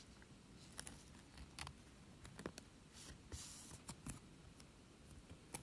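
Faint handling of trading cards: scattered light clicks and taps of card stock, with a short rustle of a card sliding about three seconds in.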